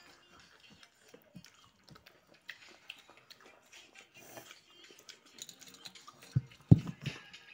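A person eating rice by hand: soft chewing and mouth sounds with small clicks of handling the food. A few loud, short thumps come near the end.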